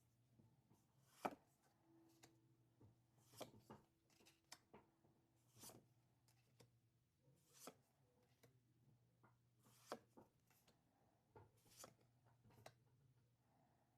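Faint, irregular soft clicks and swishes of Pokémon trading cards being handled and slid one behind another, roughly one a second, over a faint steady low hum.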